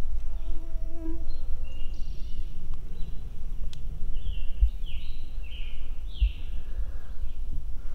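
Walking through woodland leaf litter, with footsteps and a low handling rumble on the camera microphone. In the middle, a songbird sings a run of about half a dozen short, slurred high notes.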